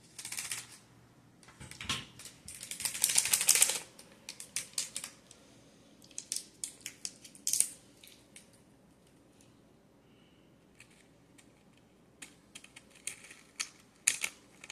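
Small plastic packet of slime sprinkles crinkling and crackling as it is torn open and shaken out, in several bursts of rapid clicks with short pauses between, loudest a few seconds in.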